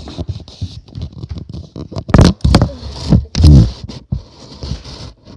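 Handling noise on a hand-held recording device's microphone: scratching, rubbing and clicks with loud low thumps, the loudest a little over two seconds in and about three and a half seconds in.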